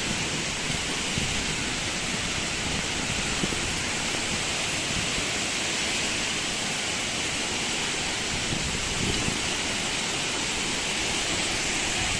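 Waterfall: a steady rush of falling water with a low rumble beneath it.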